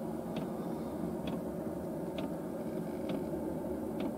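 Steady low hum of room tone with a faint, soft tick about once a second.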